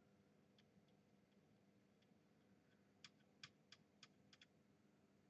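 Near silence: room tone, broken a little past halfway by a quick run of about six faint, sharp clicks.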